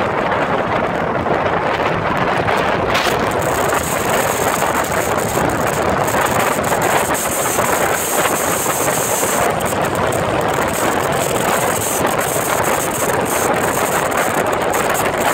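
Steady rush of wind buffeting a phone microphone on a moving motorcycle, mixed with the running of the motorcycles in a group ride.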